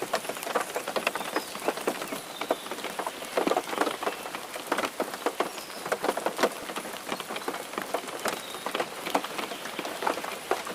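Steady rain falling, many separate drops striking a surface close by over a constant hiss.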